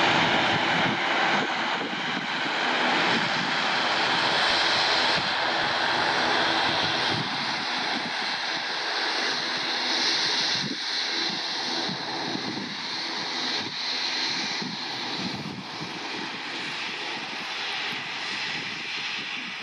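Airbus A320neo taking off, its two Pratt & Whitney PW1127G geared turbofans at takeoff power: a steady jet roar with a faint high whine, slowly fading as the aircraft rolls away down the runway and climbs out.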